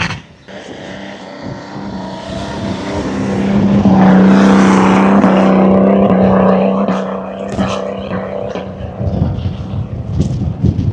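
An off-road 4x4's engine revving hard and holding high revs for a few seconds, then easing off, with a few knocks and clatters near the end.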